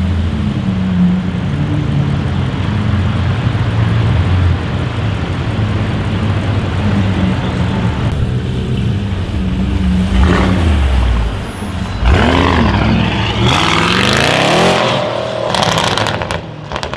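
Audi RS6 C7's twin-turbo V8 through a Milltek exhaust, running loud and steady, then climbing in pitch as it revs up about three quarters of the way through. A few sharp cracks follow near the end.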